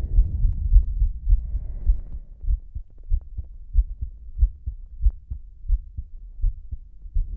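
Slow human heartbeat: regular low thumps. Heavy breathing is heard over it in the first two seconds, then only the heartbeat.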